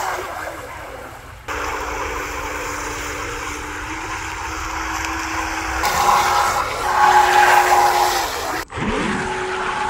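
RC jet boat's 3100 kV brushless motor and 26 mm jet pump running at speed: a steady high motor whine over the hiss of spraying water. The sound changes abruptly twice, and near the end the whine drops in pitch and then climbs again.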